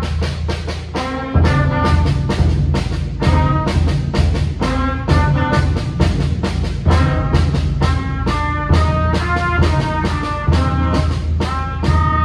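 A school concert band of clarinets, saxophone, trumpets and drum playing a piece, with sustained wind notes over a steady beat.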